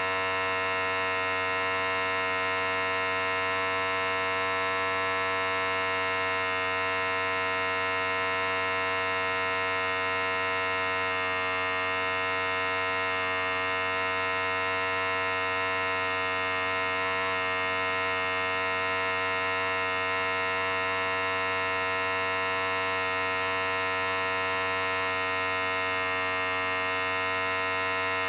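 Electric hair clipper running continuously, a steady buzz that holds the same pitch and level throughout.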